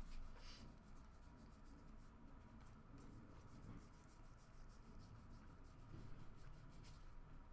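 Faint flicks and rubs of trading cards being slid one behind another in the hands, a quick run of light ticks with a slightly sharper one at the start and another near the end.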